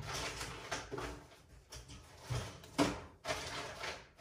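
Handling and rummaging noises: irregular rustling and clatter with a few sharp knocks, the sharpest about three seconds in.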